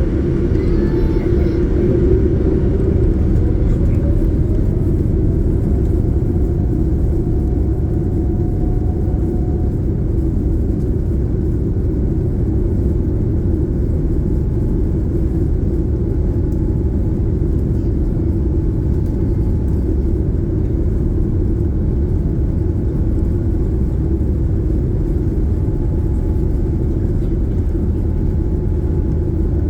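Airliner engines and airflow giving a loud, steady rumble during takeoff, with a faint rising whine a few seconds in.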